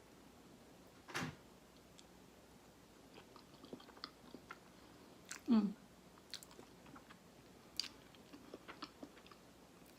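Close-miked chewing of a large mouthful of creamy alfredo pasta: soft, wet mouth sounds and small clicks throughout. There is a louder mouth sound about a second in and a short falling hum about halfway through.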